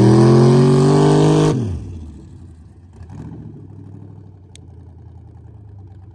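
Stock 5.3-litre V8 truck engine under hard acceleration, its pitch climbing steadily. About a second and a half in the engine note drops sharply and falls away to a much quieter, steady running sound.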